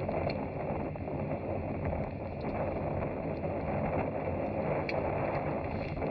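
Boat motor running steadily underway, with rushing wind and water noise over it.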